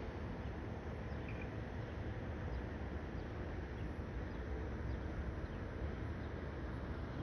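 Outdoor ambience over a harbour town: a steady low rumble with a few faint high chirps.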